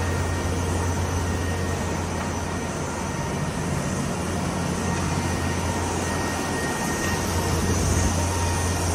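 Automatic cardboard V-grooving machine running steadily: a constant low hum with a faint high whine over an even mechanical rush, no separate knocks or cuts.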